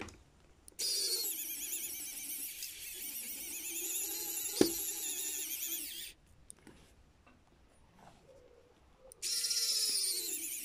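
Small electric screwdriver running, its motor whining as it drives small screws into metal model parts: one run of about five seconds, a pause, then it starts again near the end. A single sharp click about halfway through the first run.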